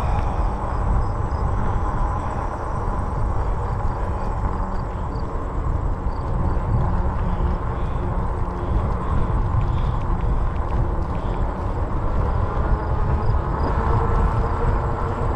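Wind buffeting the microphone while riding a RadRover 5 fat-tire electric bike: a steady, heavy rumble with no break, and a faint whine coming in near the end.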